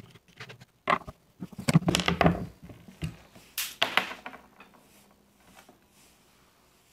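Handling noise of a Gamo Shadow 1000 air rifle being taken apart, its metal barrelled action lifted out of the synthetic stock and set down on a wooden table. A sharp click about a second in is followed by knocks and scrapes for about three seconds, then it goes quieter.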